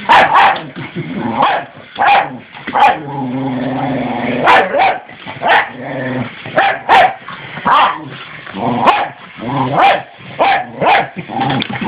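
Wire fox terrier barking at a toy train, about a dozen short, sharp barks at uneven intervals, with low growls held between them.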